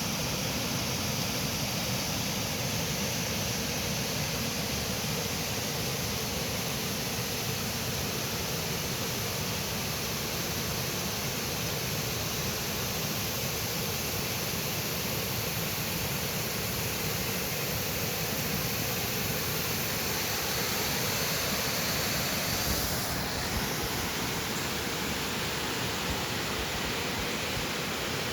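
Mountain river rushing over rocks: a steady, dense hiss of fast-flowing water.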